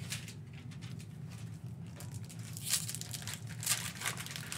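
Plastic foil wrapper of a basketball trading-card pack being torn open and crinkled by hand, with a few louder crackles in the second half.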